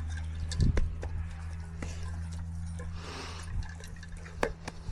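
Dogs eating from bowls: wet licking and chewing with sharp clicks of teeth or tags against the bowls, over a steady low hum.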